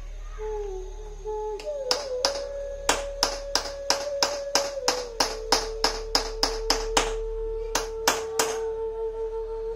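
Small hammer tapping a chasing punch into a silver sheet set in black pitch: an even run of about twenty sharp taps, three to four a second, with a short pause near the end.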